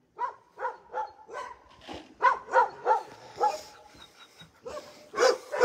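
A dog yipping and barking in a quick string of short, high calls, about three a second, then a pause and two more near the end, excited at setting off.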